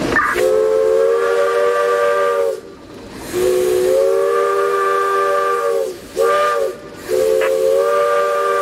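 Steam locomotive whistle blown long, long, short, long: the warning signal to chase people off the track ahead. Each blast sounds several steady tones together as a chord.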